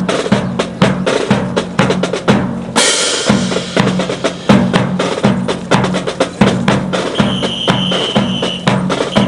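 Marching drum cadence: rapid snare drum strokes over a steady bass drum beat about twice a second. A high steady tone sounds for about a second and a half near the end.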